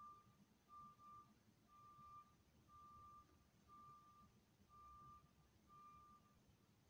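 A school bus's reverse alarm, a 2019 IC CE300, beeping faintly about once a second with a single steady tone while the bus backs up. The beeping stops near the end.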